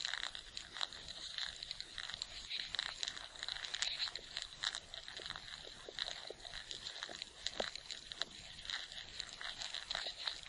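Amplified ant sound effect: a dense, irregular run of small clicks and crackles over a faint steady high hiss.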